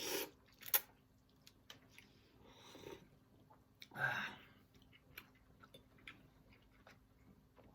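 A person chewing food close to the microphone, with scattered small mouth clicks. A sharp click comes just under a second in, and a louder breathy burst about four seconds in.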